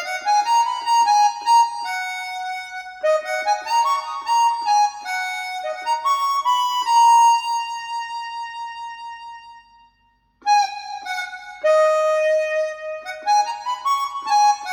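A solo harmonica melody played back through a 1995 Mission 761i loudspeaker for a sound test. Partway through, a phrase dies away into a brief pause, and the next phrase starts up again.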